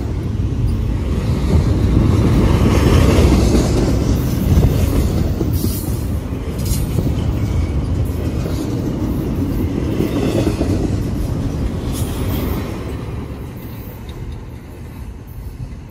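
CSX freight train of double-stacked container well cars rolling past close by: a steady rumble and clatter of steel wheels on rail, with a few short high wheel squeals. The sound fades near the end as the last car goes by.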